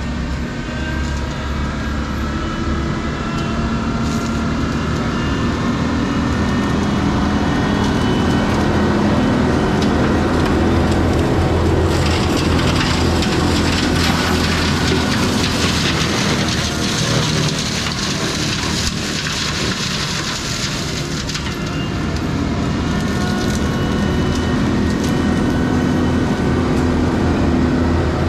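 Kubota SVL95-2S compact track loader running its diesel engine under load, with the Gyro-Trac 500HF forestry mulching head spinning and a whine that drifts up and down. From about twelve seconds in to about twenty-one seconds, a loud grinding, shredding noise is added as the head chews into brush and wood.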